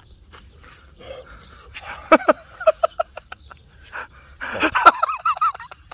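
A man huffing and letting out short, wavering pitched moans while chewing a hot pan-fried dumpling, sharp crisp chewing clicks in between; the sounds of food that is too hot but tasty. The moans come in two bursts, about two seconds in and again near the end.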